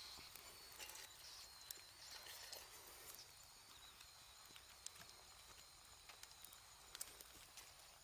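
Near silence: faint scattered clicks and taps over a thin, faint high whine that fades out about halfway through.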